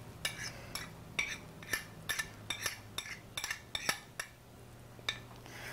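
A kitchen utensil clinking and tapping against a bowl and pan, about a dozen light, irregular clinks, as ginger and garlic are spooned into a stir-fry pan. A faint steady low hum sits under them.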